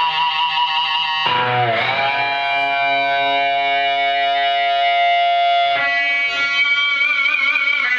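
Distorted electric guitar, a Fernandes Revolver Pro with its built-in Fernandes Sustainer, holding long, unbroken notes. About a second in the note changes with a brief dip in pitch, and near the six-second mark a new note comes in with a wavering vibrato.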